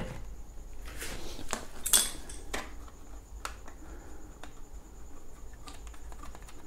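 A sharp knock of a metal tool set down on a wooden workbench, then scattered small clicks, taps and rubs as fingers work at the tyre valve of an electric unicycle's wheel.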